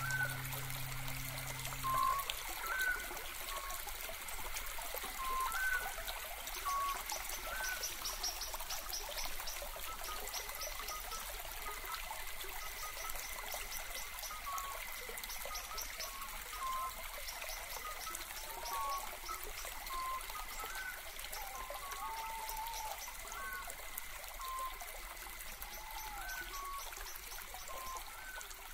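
Popping candy crackling: a dense, even stream of tiny pops and snaps, like a fizzing trickle. Short whistled chirps recur over it every second or so.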